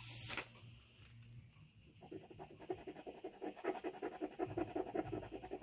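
A pointed metal tool scratching into a layer of oil paint on thick paper: a quick run of short, even strokes starting about two seconds in. At the very start the paper rustles briefly as it is shifted on the table.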